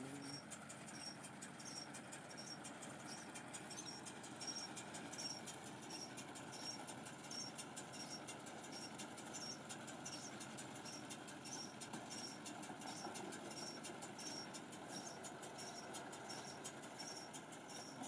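Tractor engine running faintly while it drives a tractor-mounted Gomadhi round straw baler gathering a row of paddy straw. A regular high squeak repeats about three times every two seconds.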